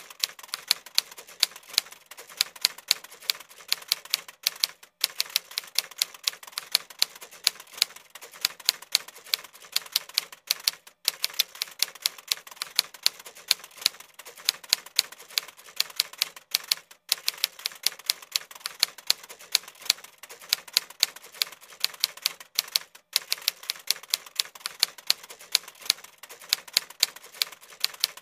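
Typewriter sound effect: keys clacking in a fast, continuous stream, with a short pause roughly every six seconds.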